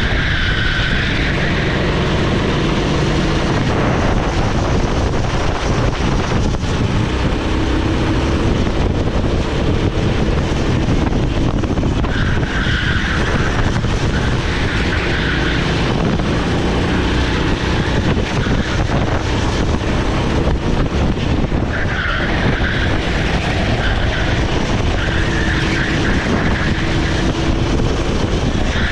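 Rental kart's Honda GX390 single-cylinder four-stroke engine running under load, its pitch rising and falling through the lap. Tyres squeal through several corners.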